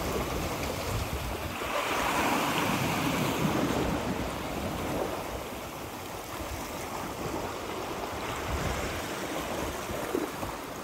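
Sea waves washing and breaking against a rocky shore, a steady rush of surf with one louder wash about two seconds in, and wind buffeting the microphone.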